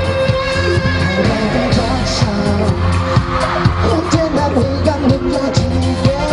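Pop music with a steady, heavy beat and some singing.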